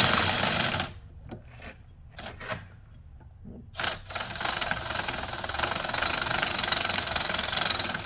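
Impact wrench hammering in two runs: a short run that stops about a second in, then a longer run of about five seconds from about four seconds in, driving the bearing press to draw the hub flush into the new wheel bearing.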